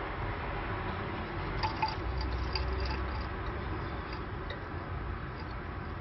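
Faint short chips and clicks from pet canaries moving about in a wire cage, a few between about 1.5 and 3 seconds in, over a steady background hiss.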